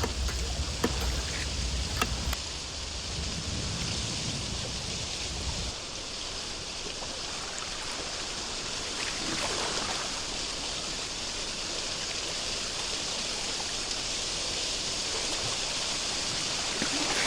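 Steady hiss of water, with a few sharp clicks in the first two seconds and a low rumble that stops about six seconds in.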